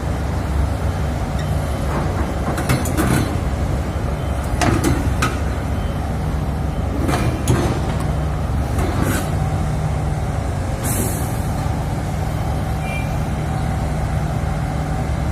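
Heavy diesel engine idling steadily, with several metallic knocks and clanks and a short hiss of air about eleven seconds in.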